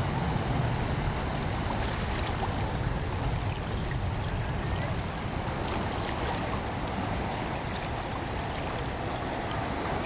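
Small sea waves washing and splashing among shoreline rocks, with a steady low rumble underneath.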